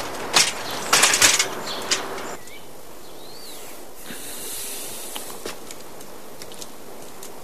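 Hurried running footsteps with rustling clothing, cutting off abruptly about two and a half seconds in. Then quiet room tone with a faint hiss and a couple of faint high chirps.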